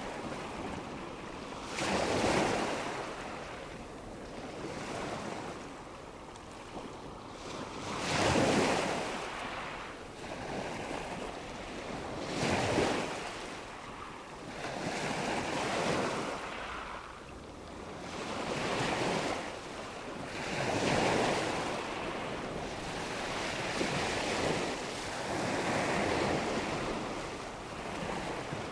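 Ocean waves breaking and washing in, one surge every few seconds, each swelling up and fading away. The strongest crashes come about two, eight and thirteen seconds in.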